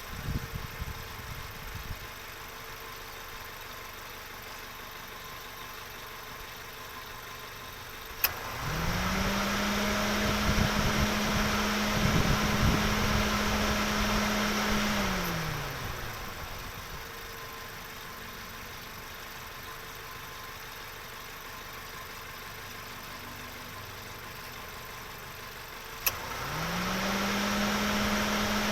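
Car engine: a sharp click, then the engine speeds up quickly to a steady higher pitch, holds it for about six seconds and winds back down to a quiet steady hum. The same click and rise come again near the end.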